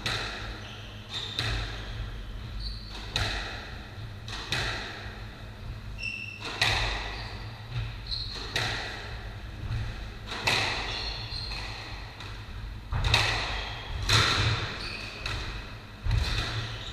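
Squash rally: sharp cracks of the ball struck by rackets and hitting the walls every second or two, each ringing in the court, with short squeaks of shoes on the wooden floor between shots.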